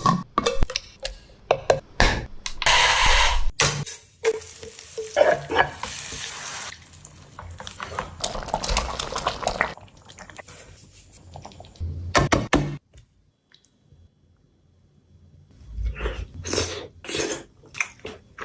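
Cooking in a pan: a utensil knocking and scraping against the cookware as the food is stirred, with several stretches of hissing noise. There is a quiet pause of about two and a half seconds past the middle, then more quick clattering.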